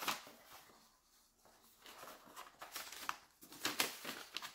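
Soft rustling and crinkling of the tissue-paper wrapping as hands lift and unfold it inside a cardboard box. A short rustle at the start, a brief pause, then a couple of seconds of uneven rustling.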